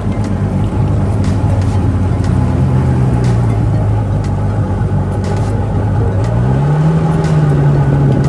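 Jet ski engine running steadily, then revving up about six and a half seconds in and holding the higher speed.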